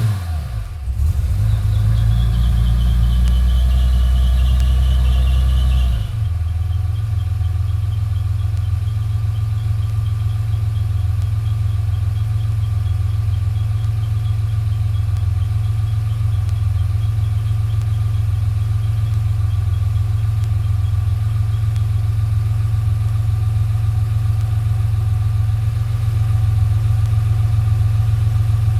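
Chevrolet Opala's 4.1-litre six-cylinder petrol engine, fitted with a 6-into-2 header, idling just after a cold start, heard from behind the muffler. It runs at a higher, fuller fast idle for about six seconds, then drops slightly and settles into a steady, even idle.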